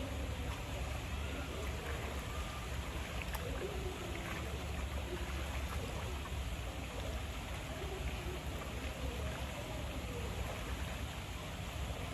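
Steady running-water noise from the sea lion pool over a constant low hum, with no animal call standing out.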